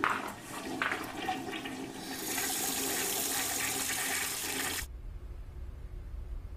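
A couple of knocks, then rushing water that grows louder about two seconds in and cuts off abruptly near five seconds.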